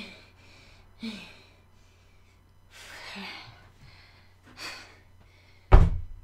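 A woman breathing hard: short gasps and a longer sighing breath out. Near the end, one loud thump.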